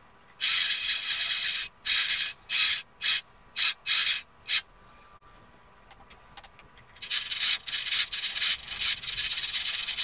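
The servo motor of a Dactron Auto STAC ST1000W voltage regulator driving its variac brush in stop-start runs of rough rubbing: one long run, a quick string of short ones, then a longer run with brief breaks near the end. It is the regulator correcting as the input voltage is swept down and back up, holding its output steady.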